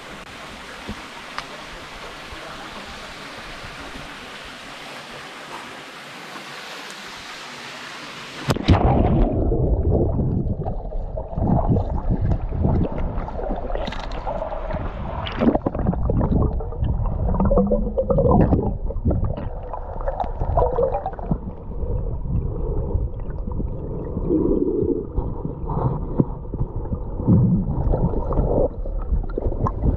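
Steady rushing of water flowing over the rock pools. About eight seconds in it cuts sharply to muffled underwater gurgling, sloshing and irregular thumps as a person moves through the water of the pool.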